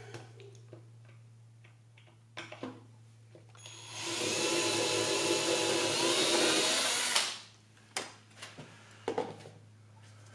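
Small handheld power drill running for about three seconds while drilling a pilot hole for a screw in the table's wood, with a few short knocks before and after.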